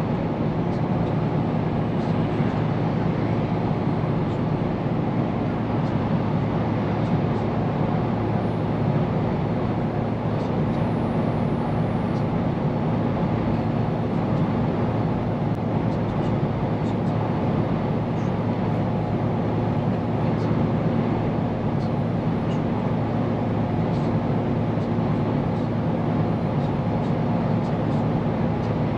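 Scania P410 truck's diesel engine running steadily under way, with tyre and road noise; no gear changes or braking stand out.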